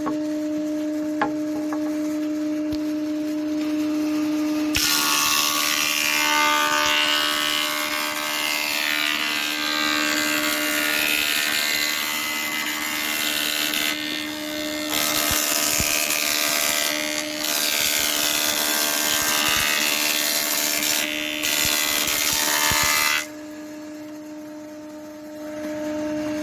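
A stationary woodworking machine runs with a steady motor hum. From about five seconds in, loud cutting noise sounds as cedar boards are fed through and machined, with short breaks between boards. The cutting stops a few seconds before the end, leaving the idling hum.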